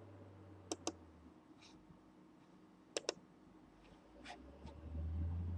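Computer mouse double-clicked twice, the two pairs of sharp clicks about two seconds apart, with a few fainter ticks between. A low hum underneath grows louder near the end.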